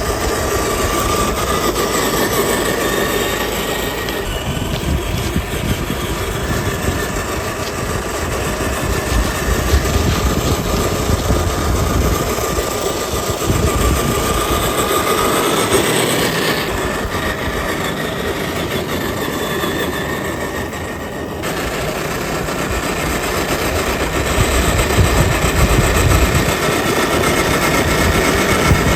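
FMS Toyota Land Cruiser FJ40 RC crawler driving, its electric motor and gearbox whining and rising and falling in pitch with the throttle, over a steady rough rumble of tyres and chassis.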